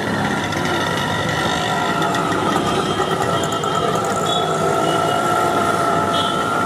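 Steady street traffic noise with a continuous engine hum.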